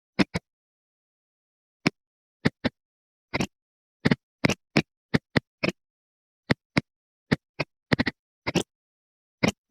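A run of short, sharp knocks and clicks at irregular intervals, some single and some in quick pairs, with dead silence between them: hard objects being set down and handled, as when stocking a fridge.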